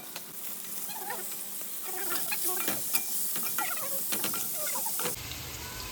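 Eating sounds at the table: crackly crunching and small clicks of cutlery on a plate, with faint voices in the background.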